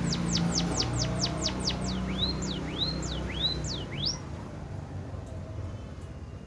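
Emprit (munia) singing a canary-style song it has learned: a fast run of high whistled notes sweeping downward, about five a second, then alternating rising and falling slurred notes, stopping about four seconds in. A low steady hum runs underneath.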